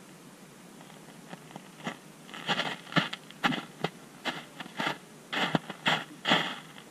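Footsteps on top of the ice heard from underwater below it: an irregular run of crunches and scrapes, faint at first and louder from about two seconds in.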